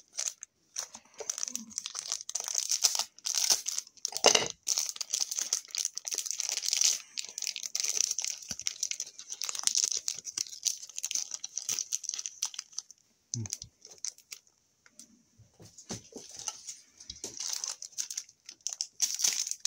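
Hockey card pack wrappers being torn open and crinkled by hand: irregular crackling and ripping, with one sharp knock about four seconds in and a short lull near fourteen seconds.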